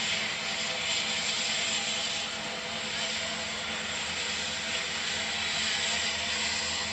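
Kvaerner Fjellstrand Flying Cat 40 high-speed catamaran ferry running at speed close by. Its engines give a steady drone with a few low hums, under a loud, even hiss of waterjet wash and spray.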